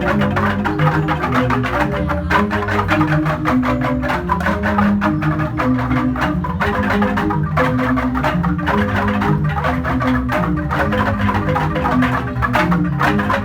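Jegog, a Balinese gamelan of large bamboo-tube xylophones, playing a fast, dense passage of struck notes over deep, sustained bass tones.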